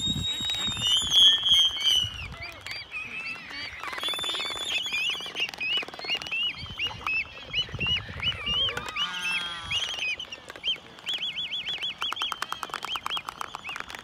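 A pair of black-footed albatrosses calling during their courtship dance: many short, high, squeaky notes, with a fast run of repeated notes about eleven seconds in.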